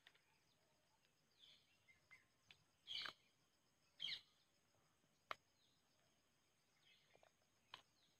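Near silence, broken by a few short faint sounds: two brief chirps about three and four seconds in, and a couple of sharp clicks later on.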